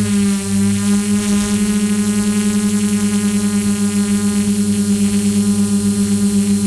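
DJI F450 quadcopter's motors and propellers running steadily in flight: a loud, even hum with a fast pulsing beat, heard close up from the camera on the drone.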